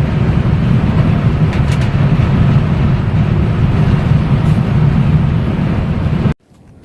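Steady road and engine rumble heard inside a moving vehicle's cabin while driving in traffic, cutting off abruptly near the end.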